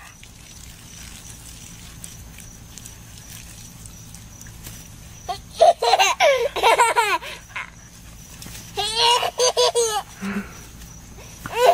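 A toddler laughing in two bursts, the first about halfway in and the second about three-quarters of the way through, with only faint steady background noise before them.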